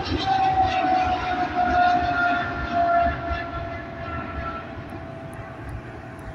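Boeing 777-300ER's GE90 turbofan engines at climb power as the airliner departs: a deep rumble under a high whine that slowly falls in pitch, fading from about halfway through as the aircraft recedes.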